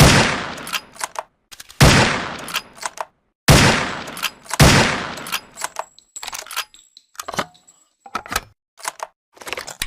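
Rifle sound effect: four loud shots, each dying away in a tail and followed by short metallic clicks, then a run of quieter mechanical clicks and clacks.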